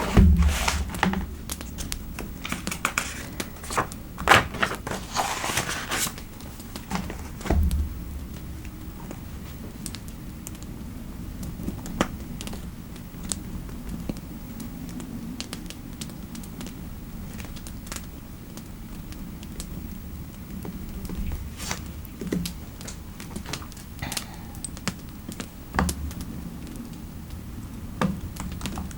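Typing on a computer keyboard, a quick run of keystrokes for the first six seconds or so, then only scattered single clicks.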